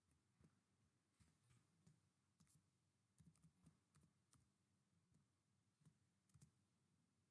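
Near silence with faint, scattered computer keyboard typing and mouse clicks.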